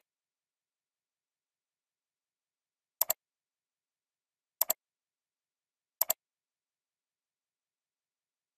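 Computer mouse button clicks: three clicks about a second and a half apart, starting about three seconds in, each a quick double tick.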